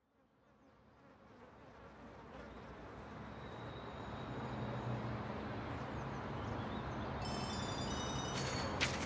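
A low buzzing drone swells up from silence. Near the end it is joined by a flurry of short high chirping tones and a brief crackle.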